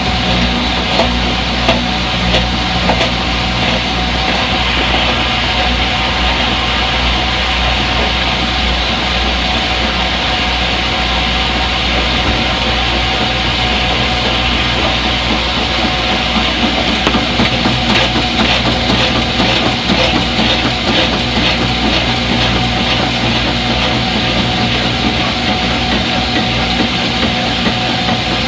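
Front-load washing machine running its spin cycle: a steady whirring with a low hum and a constant whine. A spell of light rapid clicking comes about two-thirds of the way in.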